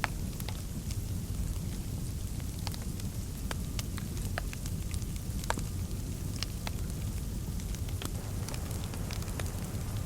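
Wood fire crackling in a fireplace: scattered sharp pops and snaps at irregular intervals over a steady low rumble.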